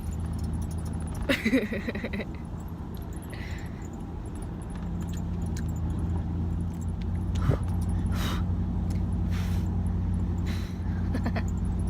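Truck engine and road noise heard from inside the cab while driving: a steady low drone that grows louder about five seconds in, with a few light knocks and rattles.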